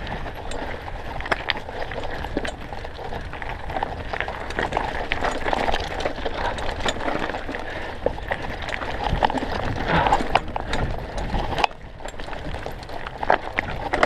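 Mountain bike rolling fast down a rocky dirt trail: tyres crunching over loose stones and the bike rattling, with many sharp knocks from the rocks over a steady low rumble.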